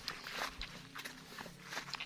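Scattered light taps and rustles at irregular spacing, like handling or footsteps on the bank.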